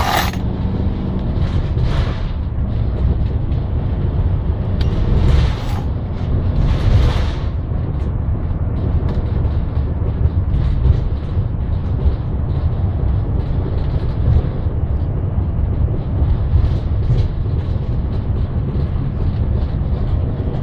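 Engine and tyre noise inside the cabin of a moving van: a steady low rumble, with a few brief knocks or rattles in the first several seconds.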